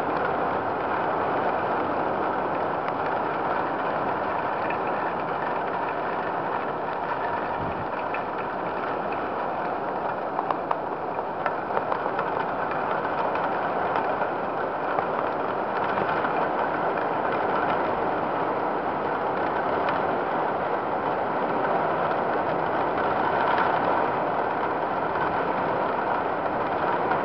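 Heavy tropical downpour: rain pouring steadily in a dense, even hiss, with a few faint clicks about ten to twelve seconds in.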